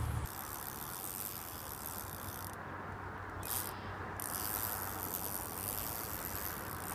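Spinning fishing reel being cranked to retrieve a cast lure: a fine whirring that runs for about two and a half seconds, stops for over a second, then starts again, over a steady outdoor hiss.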